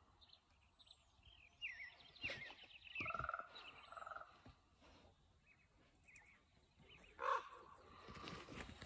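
Ravens giving bubbling, gurgling calls: two rapidly pulsed notes about three seconds in, and a louder single call near the end. Small birds chirp faintly in between.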